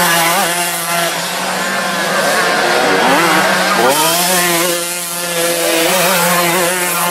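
Motocross bike engines buzzing and revving, their pitch rising and falling as the riders work the throttle, over a steady drone.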